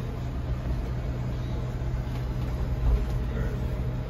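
Steady low drive-train hum and rumble heard inside the cab of a Class A motorhome moving slowly through a turn, with a brief louder low rumble about three seconds in.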